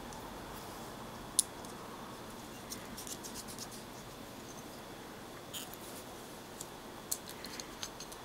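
Metal parts of a dismantled Delphi common-rail diesel pump being handled: light clicks and scrapes as the steel plates of the vane transfer pump are lifted and set against the aluminium housing. One sharp click comes a little over a second in, with scattered smaller clicks later on.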